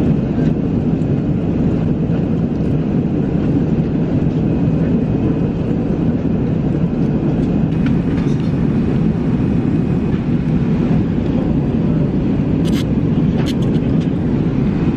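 Steady cabin noise of a Boeing 777 airliner in flight: an even, low rush of engine and airflow noise. A couple of faint light clicks sound near the end.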